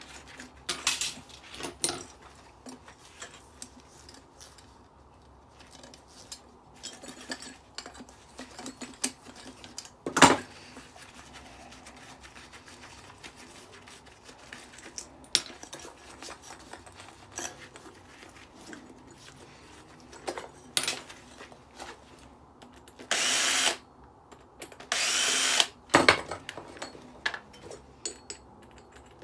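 Power drill running in two short bursts of about a second each near the end, backing out screws from a decking light. Before that, scattered clinks and knocks of metal parts being handled, with one sharper knock about a third of the way in.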